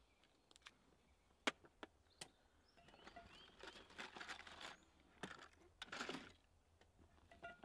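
Suitcase packing by hand: a few sharp clicks and taps, the loudest about one and a half seconds in, then soft rustling of folded cloth and strap fabric being handled.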